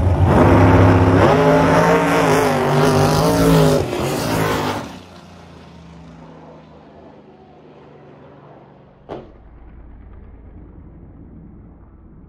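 Pro Mod drag car's V8 at full throttle on a hard launch, its pitch climbing and stepping up through the gears, then dropping off suddenly about five seconds in to a faint distant rumble as the car pulls away down the track. A single sharp knock about nine seconds in.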